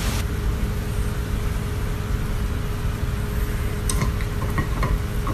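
A steady low rumbling hum with a faint constant tone underneath. From about four seconds in come a few light clicks, fitting a dog gnawing a hard chew toy.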